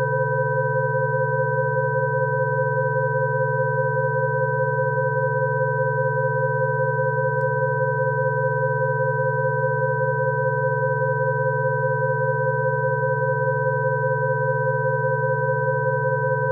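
Synthesized Rife-frequency tone track: several steady pure sine tones sounding together, from low to fairly high in pitch, held unchanged at an even level, one of the middle tones wavering slightly.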